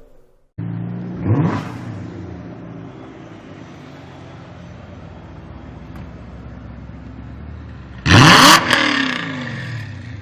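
Tuned, decatted BMW 1M Coupé's twin-turbo straight-six with a lightweight exhaust: a quick blip of revs about a second in, then running steadily. Near the end a hard rev peaks in a loud sharp crack, and the revs fall away with crackling from the exhaust.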